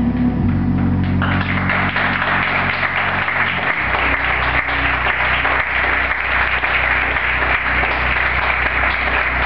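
Audience applauding in a large room, starting about a second in and carrying on steadily, while the held low chord of the closing music sounds beneath it for the first few seconds.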